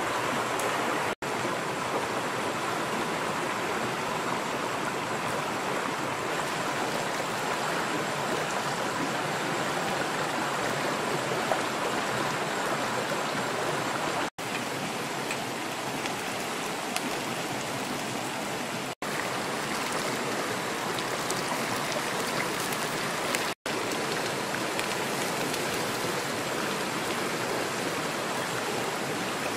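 Shallow river water running over rocks: a steady rushing of flowing water. It drops out for an instant four times at the edits.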